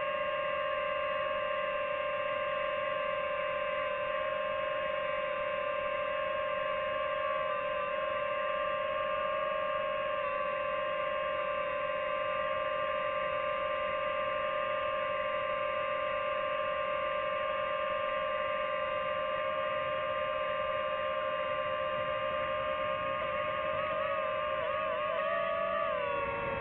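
DJI FPV quadcopter's motors and propellers whining at a steady pitch while it hovers. Near the end the whine wavers and dips as the drone manoeuvres.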